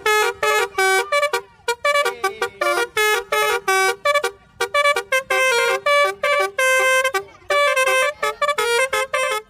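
Basuri-style telolet bus horn playing a quick melody of short, bright horn notes, about three or four a second, with a couple of brief pauses.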